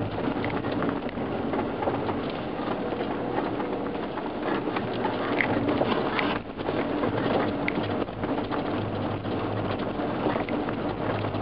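Off-road 4x4 driving along a rough gravel track: a steady engine hum under the crunch of tyres on gravel, with many small knocks and rattles.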